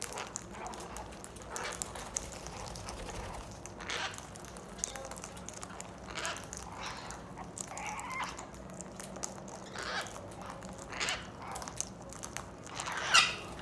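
Parrot giving short calls and chatter, a dozen or so scattered through, with one gliding call midway and the loudest call near the end.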